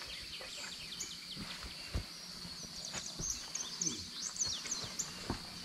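Birds chirping in many short, quick falling notes over a steady high insect drone, with a couple of soft thumps.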